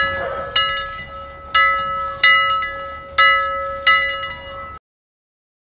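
Timer alarm bell ringing as the countdown hits zero: six bell strikes at an uneven pace, each ringing and fading into the next. The ringing cuts off suddenly near the end.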